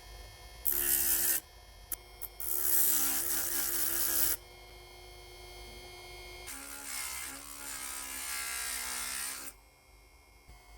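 Small handheld power tool grinding metal in three passes: a short one about a second in, a longer one from about two and a half to four seconds, and a third from six and a half to nine and a half seconds, with the motor running more quietly between them.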